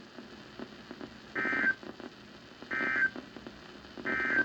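NOAA Weather Radio Emergency Alert System end-of-message signal: three short, identical bursts of warbling digital data tones, about a second and a half apart, over faint radio hiss. It marks the end of the broadcast alert.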